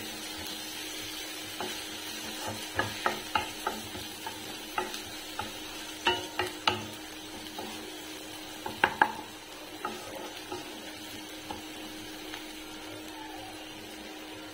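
Onions, green chillies and ginger-garlic paste sizzling in oil in a nonstick kadai while a wooden spatula stirs them, scraping and knocking against the pan. The stirring stops about ten seconds in, leaving the steady sizzle.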